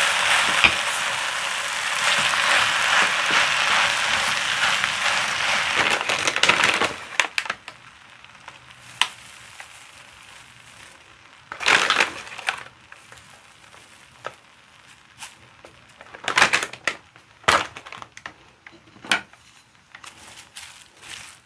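Kimchi fried rice being stir-fried in a wok, a wooden spatula scraping and tossing it with a dense frying noise for about seven seconds. The noise then drops away. Sharp crinkles and rustles follow, several times, as crumbled seaweed is scattered from a bag and stirred in.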